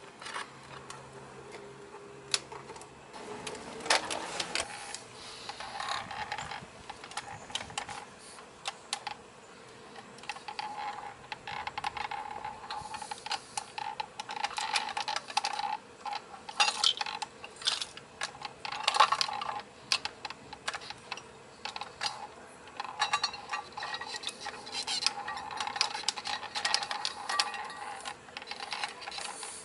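Irregular small clicks and rattles from a 1/34-scale diecast model front-loader garbage truck being handled by hand, its plastic lift arms and forks being moved and its wheels rolling on concrete.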